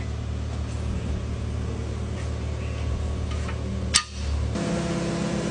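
A steady low motor hum with a sharp metallic click about four seconds in, after which the hum carries on a little changed.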